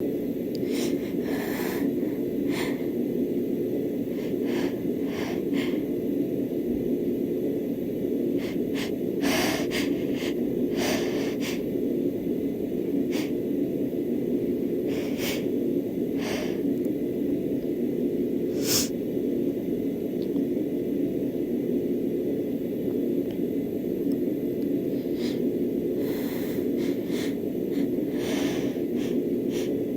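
A woman sniffing and taking short, sharp hitching breaths at scattered moments, the build-up to sneezing from a dust-irritated nose, over a steady low hum.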